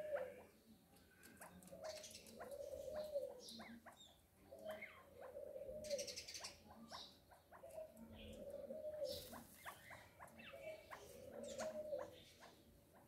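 Chukar partridge chicks calling in short high peeps, mixed with a lower whining call that repeats every second or two and light clicks.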